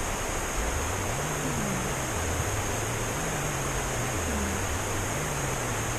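A sleeping cat snoring softly, a low snore coming back about every two and a half to three seconds, under a steady hiss that is the loudest thing heard.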